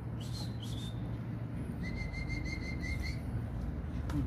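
A bird calling: a few brief high chirps, then a rapid run of short, evenly spaced notes at one pitch for about a second and a half.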